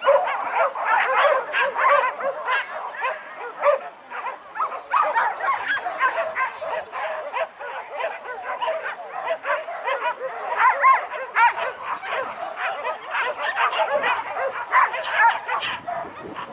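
A pack of hunting dogs barking and yelping at once, many voices overlapping without a break.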